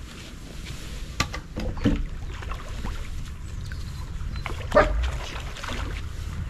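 A dog barking a few short times, the loudest bark about five seconds in, over a low rumble.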